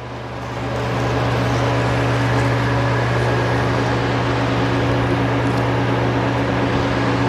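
Electric fan running steadily: a low hum under a rush of air, growing louder over the first second and then holding even.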